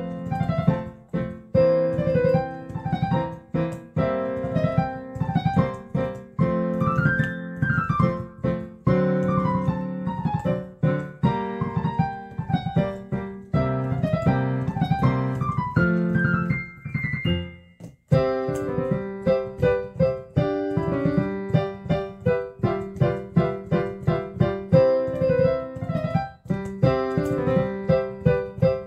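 Background piano music: a melody of struck notes that ring and fade, over steady low chords. It breaks off for a moment about two-thirds of the way through and then picks up again.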